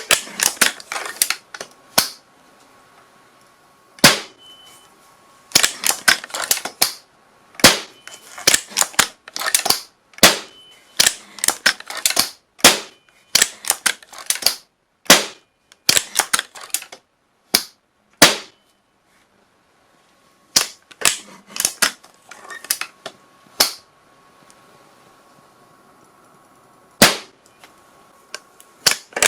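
Gunshot sound effects: a long series of sharp, short shots, some single and some in quick rattling clusters, broken by a silent gap of about two seconds midway.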